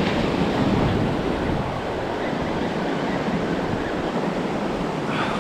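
Ocean surf breaking and washing around the legs in a steady rush, with wind buffeting the microphone.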